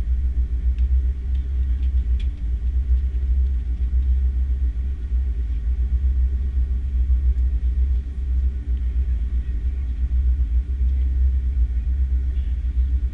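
Steady low rumble of an Airbus A330-300 airliner heard from inside the cabin: engine and cabin noise.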